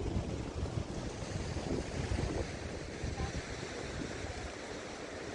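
Sea waves surging and strong wind, with gusts buffeting the microphone into a steady low rumble.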